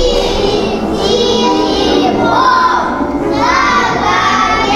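Children's voices singing a song over backing music.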